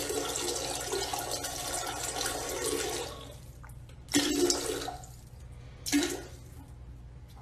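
Toilet flushing: a steady rush of water with a faint singing tone, dying away about three seconds in. Two short, louder sounds follow, about four and six seconds in.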